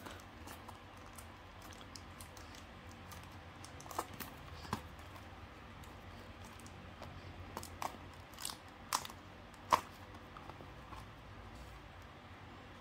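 Fingers picking at and handling a cardboard trading-card booster box: scattered small clicks and crinkles, with a few sharper ticks around four seconds in and again near ten seconds.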